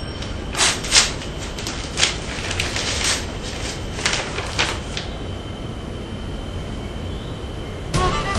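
Paper rustling in a run of crisp crackles as a letter is handled and unfolded, dying away after about five seconds. Violin music comes in near the end.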